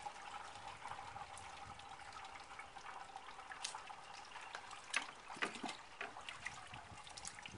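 Water trickling from the bottom of an AquaPail gravity-fed filter bucket into a clear plastic container below, with a few light clicks of handling in the second half.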